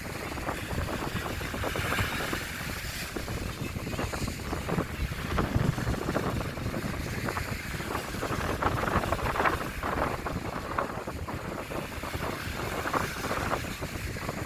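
Strong wind buffeting the microphone in uneven gusts, a dense rumbling rush.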